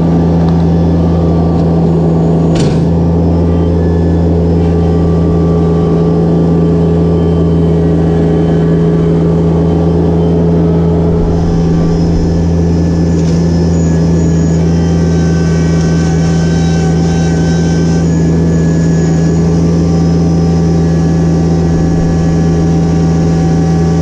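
Yanmar compact tractor's diesel engine running at a steady speed while the tractor is driven across a lawn, heard loud from the driver's seat. There is a single click about three seconds in, and a high whine joins about halfway through.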